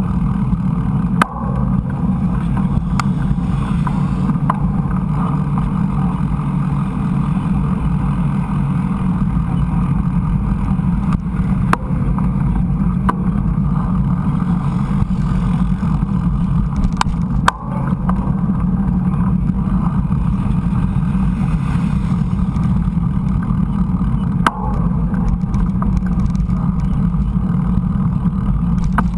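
Steady rumble of wind on the action-camera microphone and mountain-bike tyres rolling over a dirt trail, with three sharp knocks from bumps, about a second in, midway through, and near the end.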